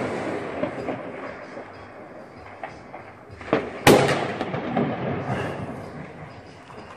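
A Super Bulldog 30 g firecracker goes off about four seconds in with one sharp, loud bang, just after a smaller crack.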